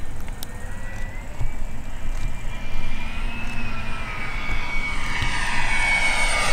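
Giant RC Airbus A380 model's four electric ducted fans whining in flight: a high, steady tone that rises slightly in pitch and grows louder as the model approaches.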